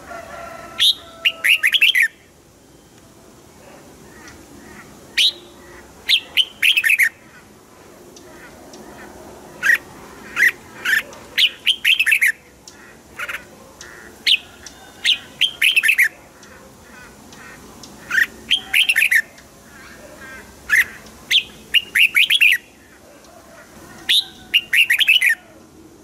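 Red-whiskered bulbul singing: loud short phrases of a few quick whistled notes, repeated every two to three seconds.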